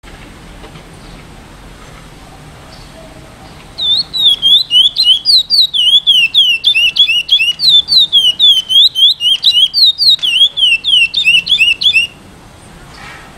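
Eight-month-old male curió (chestnut-bellied seed finch), just beginning to sing, giving a fast run of clear, curved whistled notes in the Praia Grande classic song pattern. About four or five notes a second, starting about four seconds in and stopping abruptly some eight seconds later.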